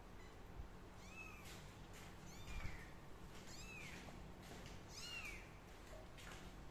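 A kitten mewing four times, one thin, high mew about every second and a half, each rising then falling in pitch.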